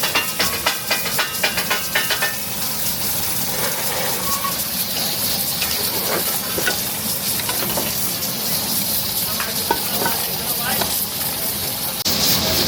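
Chicken frying in a karahi and sizzling steadily, stirred with a metal ladle. The ladle clatters rapidly against the pan for about the first two seconds, then scrapes now and then. The sizzle grows louder near the end.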